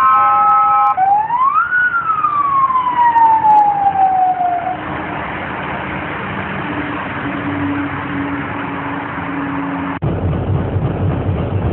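Siren sounding a steady tone, then sweeping up and winding slowly down in one long wail, over traffic noise. About ten seconds in, the sound cuts abruptly to a low engine rumble.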